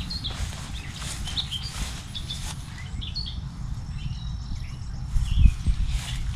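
Small birds chirping repeatedly over a low wind-like rumble, with a couple of dull thumps near the end.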